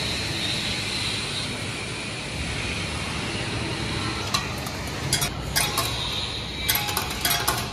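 Steady background rumble. From about four seconds in come several bunches of sharp plastic clicks and rattles as a ready meal in a plastic tray is handled and taken out of a vending machine's pickup compartment.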